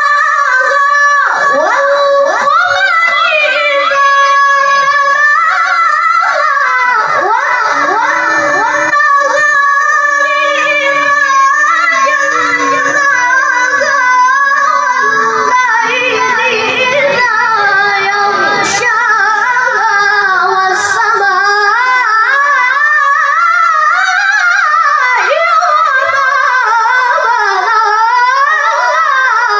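A high voice singing a flowing melody, its pitch wavering and gliding throughout.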